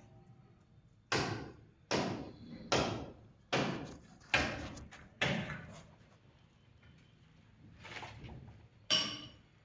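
Hammer blows during plumbing work: six steady strikes about one every 0.8 seconds, each ringing briefly, then a pause and one more strike near the end.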